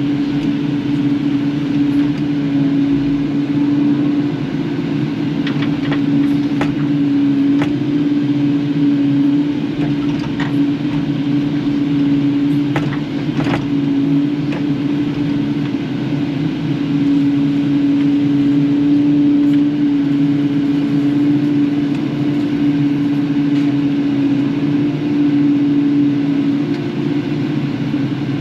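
Kubota KX080-4 excavator's diesel engine running steadily under work. A few sharp metallic clanks between about five and fifteen seconds in.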